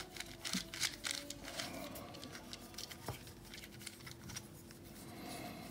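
Plastic twisty puzzle being turned by hand: soft clicks and rattles of its pieces shifting, busiest in the first second and a half, with one sharper click about three seconds in.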